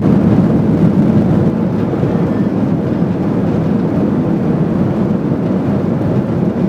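Steady low rumble and rush of a Boeing 737-800 cabin in flight: the CFM56-7B turbofans and the airflow over the fuselage, heard from a seat behind the wing.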